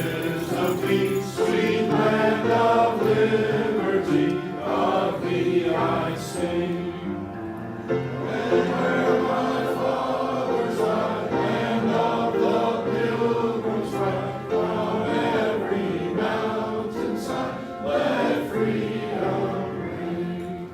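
A group of voices singing a song together over a steady musical accompaniment, dropping away near the end.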